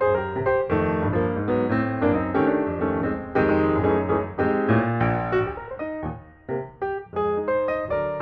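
Background piano music, quick notes played one after another over low sustained chords.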